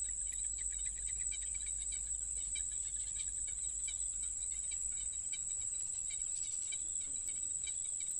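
Insects, crickets among them, calling together: a steady high-pitched trill with rapid, repeated chirping beneath it.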